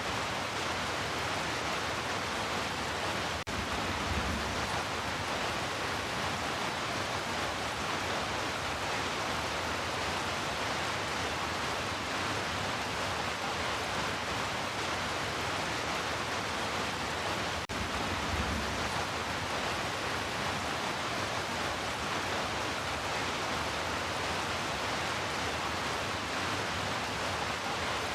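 Heavy rain falling as a steady, even hiss. The sound drops out twice for an instant, about 3.5 seconds and 17.5 seconds in, and each dropout is followed by a brief low rumble.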